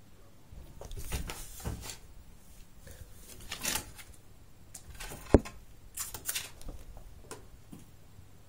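Short bursts of rustling and scuffling close to the microphone as a cat plays and lunges at the camera, with one sharp knock about five seconds in.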